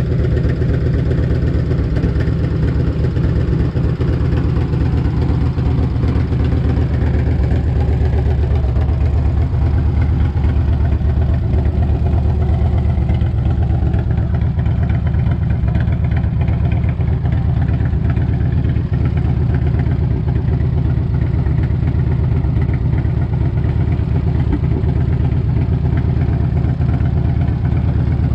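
Harley-Davidson Electra Glide's Evolution V-twin engine idling steadily, a low purr with an even beat. It is running warm after an oil change so that the new oil filter fills, and the owner judges it sounds good for a bike with almost 100,000 miles.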